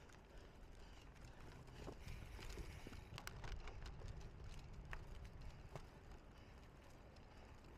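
Faint low rumble from a bicycle ridden over rough ground, with irregular clicks and rattles scattered through it.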